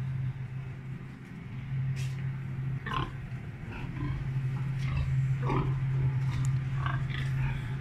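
Penned gilts grunting and squealing, a handful of short separate calls spread through, over a steady low hum.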